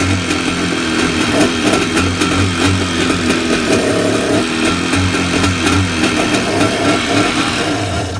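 Kawasaki 650SX jet ski's two-stroke twin engine running on its first start after being reinstalled in the repaired hull, with the engine speed rising and falling a little. It shuts off at the very end.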